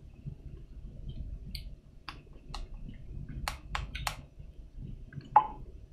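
A scatter of light, sharp clicks and taps, about six over a couple of seconds, then a louder clink with a short ring near the end.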